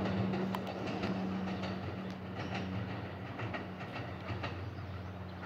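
285 series Sunrise Express sleeper electric train running away along the line: wheels click over the rail joints over a steady low hum, slowly growing fainter as it recedes.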